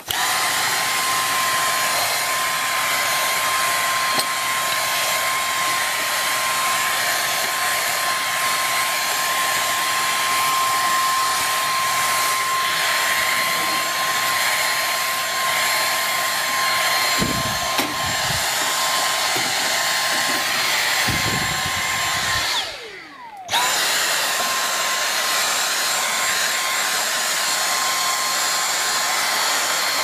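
Dyson V6 Absolute cordless stick vacuum's motor starting up and running with a steady high whine over the rush of suction, with a few low knocks in the second half. Near the end it cuts out, its whine falling away, then starts up again within about a second.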